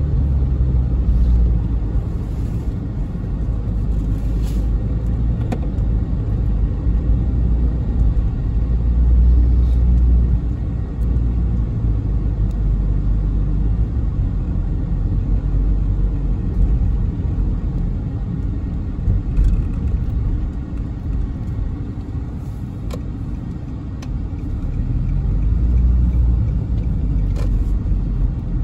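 Car road noise heard from inside the cabin while driving: a steady low rumble of engine and tyres that swells and eases a little at times.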